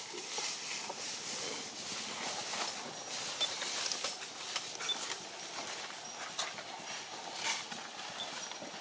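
Irregular rustling and crackling of dry leaves and twigs, with a few short high chirps.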